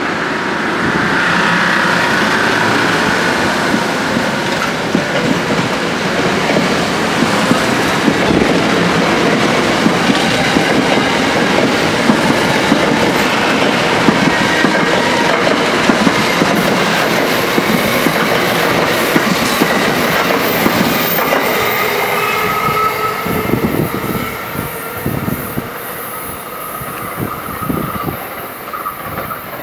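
Metro-North M2 electric multiple-unit train rolling past close by, its wheels clacking over rail joints with some high wheel squeal. Near the end a few sharp clacks come from the last trucks, and then the sound falls away as the train recedes.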